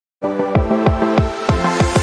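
Electronic intro music: held synth notes over a bass hit that drops in pitch, repeating about three times a second.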